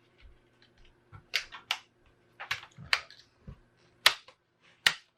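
Plastic laptop screen bezel clips snapping loose as a pry tool works around the bezel: a series of about six short, sharp clicks at uneven intervals.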